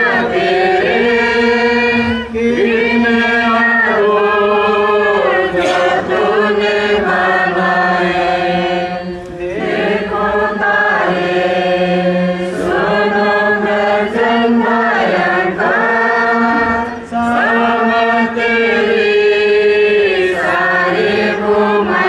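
A congregation singing a hymn together: many voices in slow, held notes, in phrases of a few seconds with short breaks for breath.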